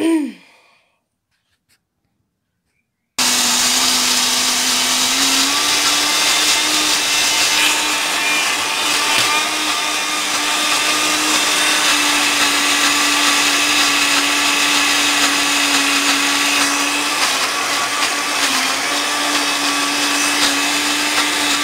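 Countertop blender running steadily, grinding lentils and green chillies with a little water into a smooth batter. It starts abruptly about three seconds in, and its motor hum steps up slightly in pitch a couple of seconds later.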